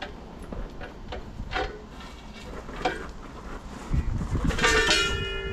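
Steel parts of a Massey Ferguson disk harrow being handled during assembly: scattered metal clinks and knocks, then about four seconds in a heavy clank after which the steel rings on with a sustained, bell-like tone.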